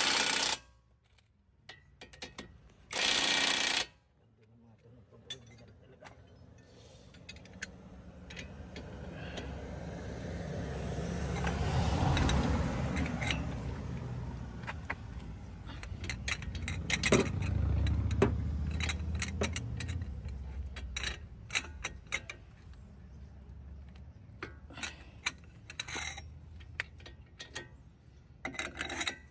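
Impact wrench firing in two short bursts on front suspension bolts, a brief one at the very start and one of about a second about three seconds in. Then a low engine rumble swells and fades over some fifteen seconds, like a vehicle going past, with scattered metallic clinks of hand tools.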